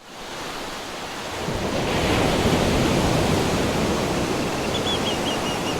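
Rushing wind and sea-water noise, with wind on the microphone, fading in at the start and growing louder about two seconds in. Faint high chirps repeat near the end.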